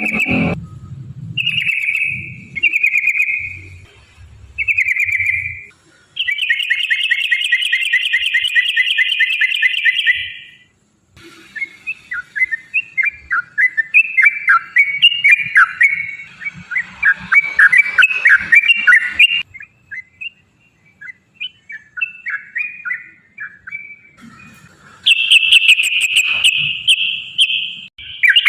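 Sooty-headed bulbul (trucukan) singing: a few short whistled phrases, then a long rapid rolling trill about six seconds in, a jumbled run of quick chattering notes, and another rapid trill near the end.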